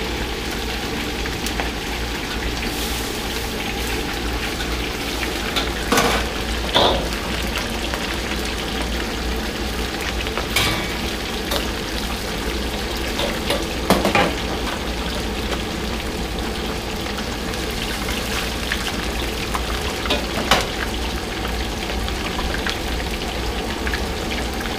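Fish deep-frying in a wok full of hot oil: a steady, even sizzle, with a few short sharp knocks along the way.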